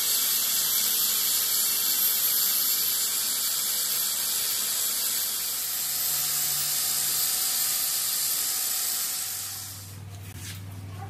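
Angle grinder's abrasive disc grinding the steel teeth of a spiral bevel pinion gear, a steady high-pitched grinding whine. It stops near the end, leaving a low hum and a few clicks.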